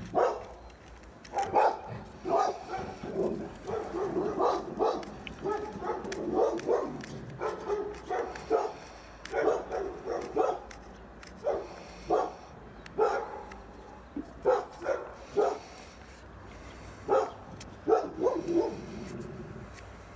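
A dog barking repeatedly in short barks, often a few close together, with brief pauses between runs.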